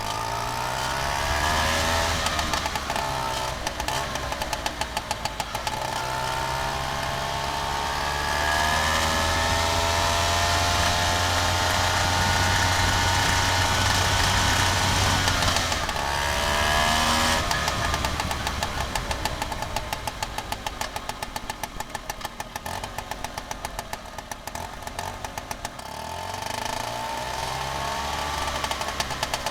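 Vespa scooter engine running under way, heard close to the engine. It revs up and holds a steady pitch, eases off about 15 seconds in and picks up again, then settles to a lower, pulsing run before accelerating again near the end.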